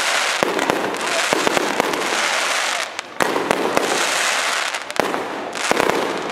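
Fireworks display: a dense crackling of many small pops with sharp reports mixed in, easing briefly about three seconds in.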